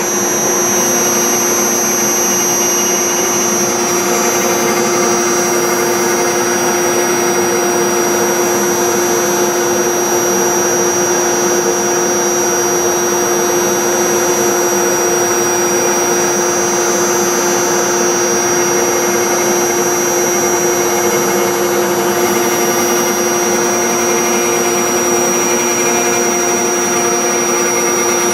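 Spindle of a 5-axis Legacy CNC router running steadily with a constant high whine as its V-bit carves a scroll into poplar.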